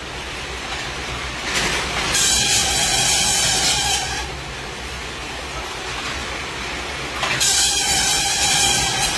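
Satay skewer machine running with a steady low rumble, broken twice by a loud hissing stretch of about two seconds, the two about five seconds apart, as the machine works through its repeating cycle.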